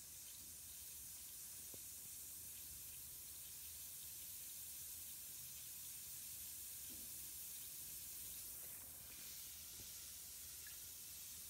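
Lush Mermaid bath bomb fizzing in bathwater: a faint, steady hiss.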